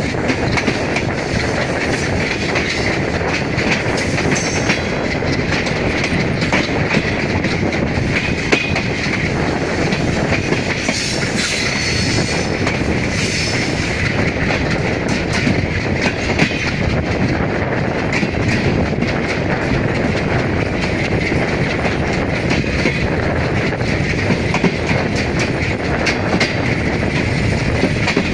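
WDM-3A diesel-electric locomotive hauling an express train at speed: the engine and turbocharger run with a steady high whistle, and the wheels clatter over the rail joints. Brief hissy surges come twice, a few seconds in and again about halfway through.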